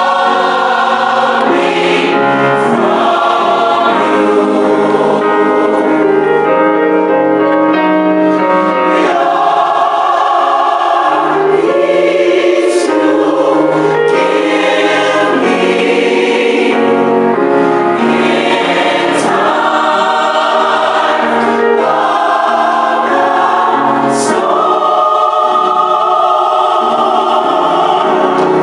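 A choir singing a gospel song: loud, steady, with sustained chords that change every second or two.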